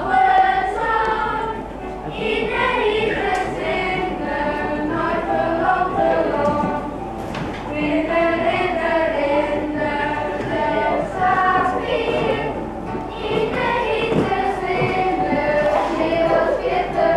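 A choir of voices singing a song together.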